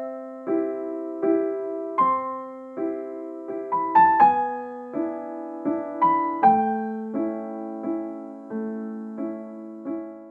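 Soft, slow piano music: gentle chords struck one after another, about one every three-quarters of a second, each ringing and fading away.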